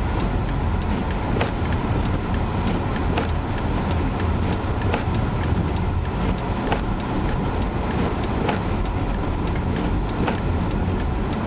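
Steady road and engine rumble inside a Chevrolet Malibu Classic driving on a snowy highway, with a faint regular click about every second and three-quarters.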